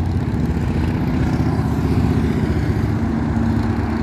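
Motorcycle engines running as motorcycles ride past on the road, a loud, steady low engine note with another bike's higher note joining about three seconds in.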